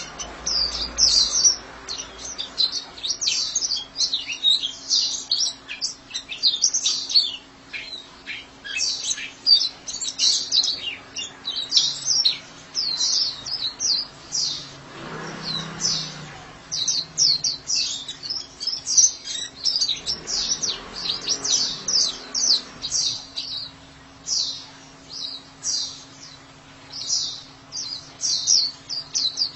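White-eye (pleci) singing a rapid, unbroken string of high chirps and twitters, the loud chattering 'ngekek' song.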